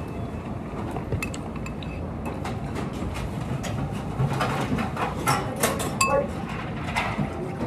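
Chopsticks clicking and clinking against a glazed ceramic bowl as food is picked from it and the bowl is handled, with a few brief ringing clinks about two-thirds of the way through, over steady background noise.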